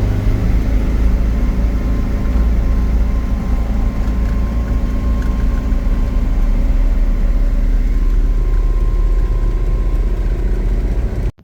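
Steady low rumble of a motor vehicle running, engine and road noise without change in pitch.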